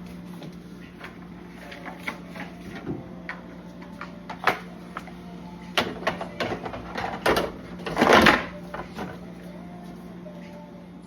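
Scattered knocks and clatters of items and fittings being handled in a fridge, the loudest a longer rattle about eight seconds in, over a steady low hum.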